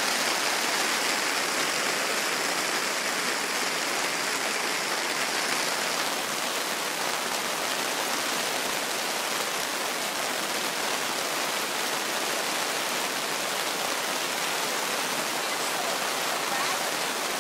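Pouring rain falling steadily, an even, dense hiss with no let-up.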